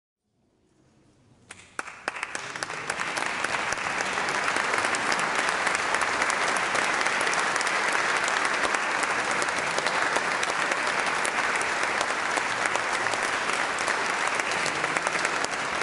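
Audience applauding: clapping swells up from silence over the first few seconds, with a few single claps standing out near the start, then holds steady and dense.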